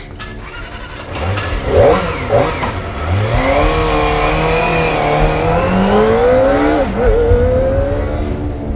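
Kawasaki Ninja ZX-25R 250 cc inline-four engine. It blips a couple of times, then accelerates with its pitch climbing steadily. The pitch drops sharply near seven seconds as it shifts up a gear, then climbs again.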